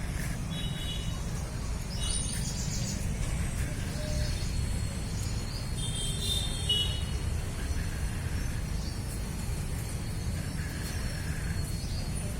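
Small birds chirping in short bursts, a few times, over a steady low rumble.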